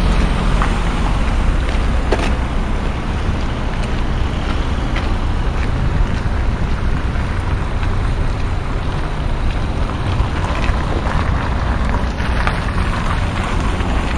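NSB BM70 electric multiple unit alongside at close range, a steady low rumble from the train with a few short clicks from its wheels and running gear.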